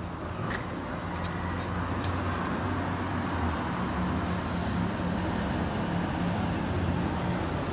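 Motor vehicle engine running steadily with road noise, a low hum that builds slightly about a second in and then holds.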